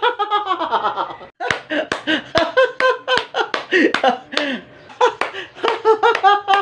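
A man laughing hard in rapid, repeated bursts, with a few sharp hand claps mixed in.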